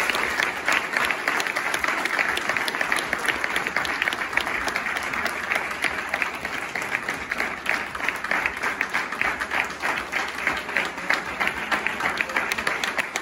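Applause from a roomful of people, many hands clapping steadily and densely without letting up.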